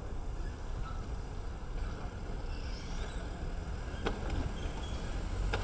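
A roll-up industrial door opening over a steady low rumble, with a sharp click about four seconds in and another near the end.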